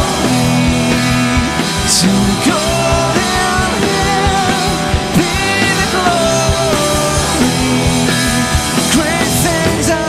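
Live rock band playing a song, with electric guitar, keyboards and drums.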